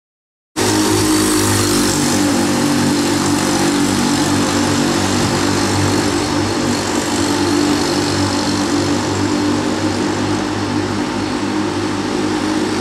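Pacing motorbike's small engine running at a steady, even speed as it leads a cyclist around a velodrome; the sound cuts in abruptly about half a second in.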